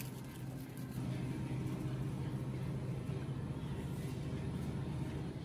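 Supermarket background noise: a steady low hum with a rumbling hiss, typical of refrigerated display cases and a rolling shopping cart, which drops away right at the end.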